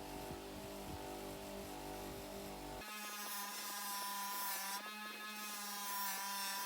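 Electric polishing tool motor running with a steady buzzing hum. About three seconds in it changes abruptly to a higher whine whose pitch wavers as the tool is loaded against the metal.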